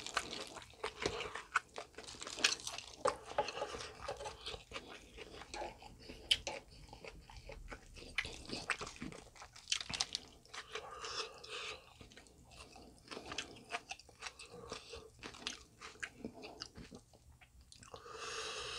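Close-miked, wet crunching and chewing of raw napa cabbage wraps filled with spicy stir-fried pork, in irregular crackles throughout.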